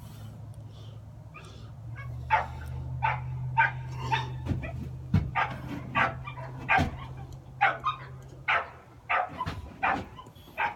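American Staffordshire bully puppy crying out in short yips, about two a second, starting about two seconds in. A low steady hum runs underneath and stops about eight seconds in.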